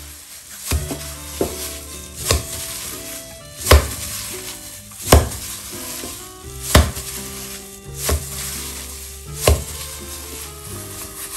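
Sticky mashed tofu and rice mixture slapped down hard into a glass bowl to work it sticky: about eight dull thuds, roughly one every second and a half. Soft background music plays underneath.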